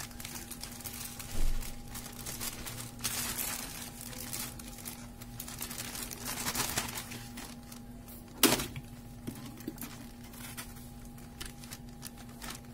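A thin clear plastic bag crinkling and rustling as a caladium, its roots wrapped in wet tissue, is slid into it and the bag is handled around it. The crinkling comes in uneven bursts, with one sharp crackle about eight and a half seconds in, the loudest sound.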